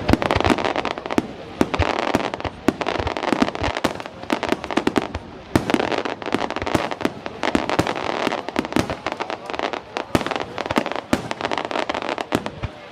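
Aerial fireworks going off in a rapid, irregular run of sharp bangs and pops, many overlapping, with no pause through the whole stretch.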